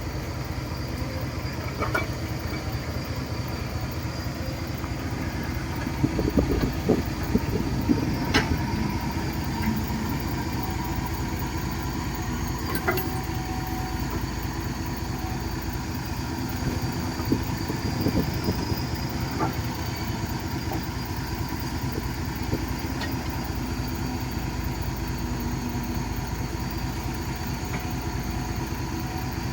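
Caterpillar 312B hydraulic excavator's diesel engine running steadily, with a few sharp clanks and two louder spells, about six seconds and about seventeen seconds in.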